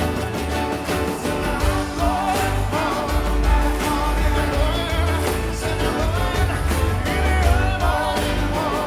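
Live band music with a strong, steady bass and a melodic lead line that bends up and down, in a rock and blues style.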